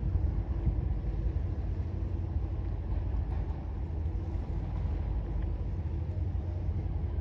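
Steady low rumble of a large motor yacht under way at slow speed, with a faint steady hum.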